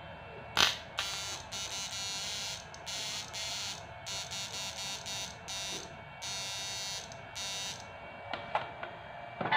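A homemade electrofishing inverter under a 1500 W lamp load buzzes in about a dozen short, irregular on-off bursts as it fires, with a switch click about half a second in.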